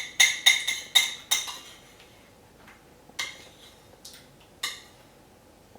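A run of quick ringing clinks, about five in the first second and a half, then two louder single clinks about three and four and a half seconds in.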